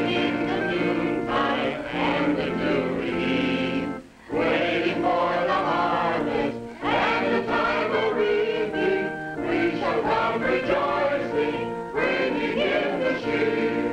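A church congregation of mixed voices singing a hymn together in long held notes, pausing briefly between lines.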